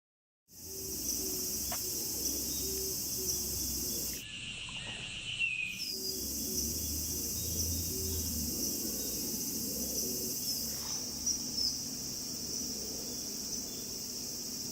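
Steady, high-pitched chorus of insects. It breaks off abruptly for about a second and a half around four seconds in, when a lower buzzing takes over, then resumes.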